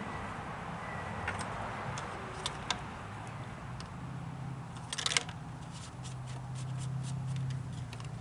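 Scattered light clicks and taps from handling things, with a tight cluster of clicks about five seconds in, over a steady low hum.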